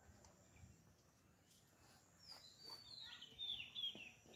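A bird calling faintly: a run of high notes, each sliding down in pitch, beginning about two seconds in.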